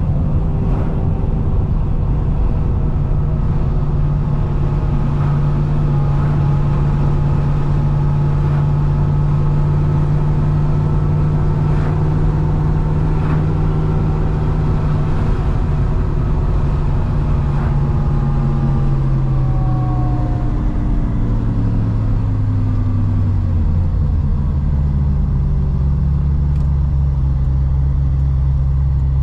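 C6 Corvette ZR1's supercharged V8 running at steady cruising revs, then its pitch falls away over several seconds about two-thirds of the way in and settles into a low, steady drone as the car slows.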